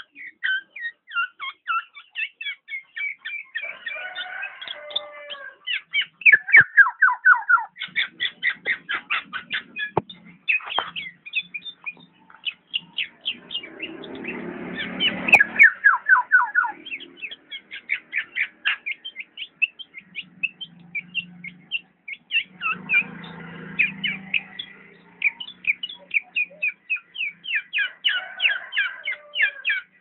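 Caged black-naped oriole (kepodang) calling in long runs of rapid, short chattering notes, several a second, broken by brief pauses.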